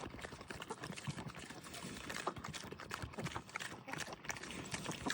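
Pigs and chickens milling about together: a busy run of short scuffs and clicks from their feet and pecking, with a few short grunts and clucks.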